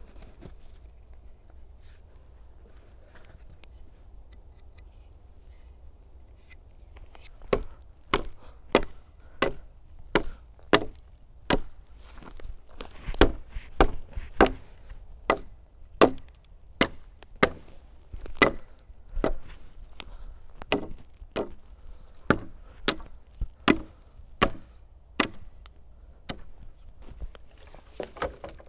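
Hatchet chopping into a wooden pole with steady, evenly spaced strokes, about three every two seconds, starting about seven seconds in.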